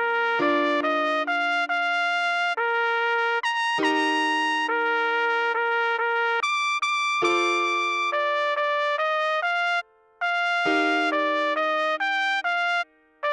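Trumpet playing a slow melody line note by note, over piano chords struck about every three and a half seconds. This is the song played at half speed, with two short breaks between phrases near the end.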